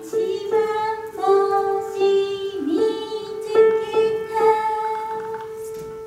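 A high voice singing a simple song over light instrumental accompaniment, with notes held and changing in steps.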